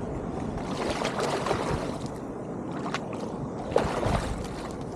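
Water splashing and sloshing around a fishing kayak, with a few sharp knocks against the hull or gear.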